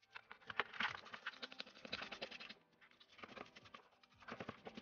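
Dense clicking and scraping of small metal engine parts being handled and worked by hand over a parts tray, busy for about two and a half seconds, then two shorter spells of clicks.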